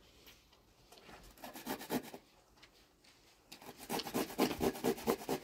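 A green vegetable being grated on a small hand grater into a metal pot: rapid, even rasping strokes, a few quiet ones about one and a half seconds in, then a quicker, louder run from about three and a half seconds in.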